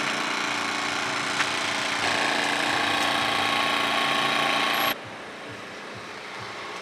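A motor running steadily with a hiss and a low hum, its tone brightening about two seconds in; it cuts off abruptly about five seconds in, leaving quieter background noise.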